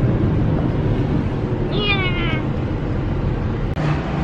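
Steady low road noise inside a moving car's cabin. About two seconds in, one short, high cry that falls in pitch rises above it.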